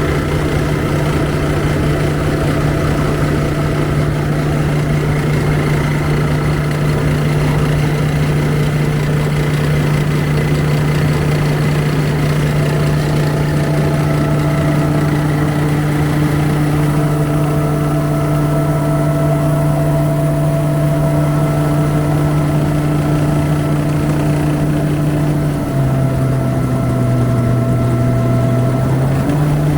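Kaneko KMP-400JX rice huller running steadily with a low, even hum. Its pitch drops about 26 seconds in and rises briefly again near the end.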